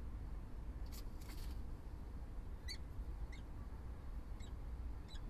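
Peregrine falcon giving four short, high calls about a second apart during an incubation changeover at the nest, after a brief rustle about a second in. A steady low hum lies underneath.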